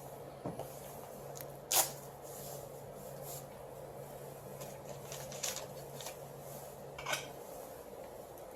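A few light clicks and knocks of parts being handled during copier fuser repair work, the sharpest about two seconds in, over a steady low hum that stops shortly before the end.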